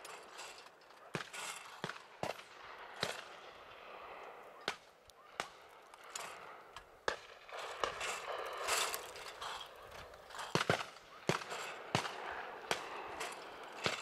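Shotguns firing at clay targets in an irregular, scattered series of sharp reports, some in quick doubles, heard at a distance.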